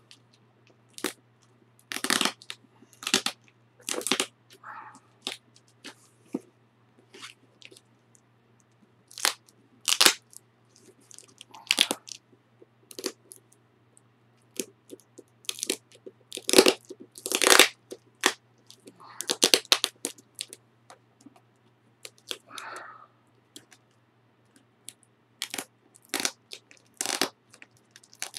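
Fingers picking at and peeling old scotch tape off a cardboard box: irregular crackles and short rips of the tape, with taps and scuffs of the cardboard being handled.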